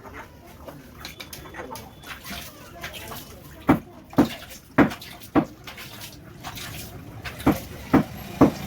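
A butcher's cleaver chopping through a goat head: four sharp blows about half a second apart midway, then three more near the end.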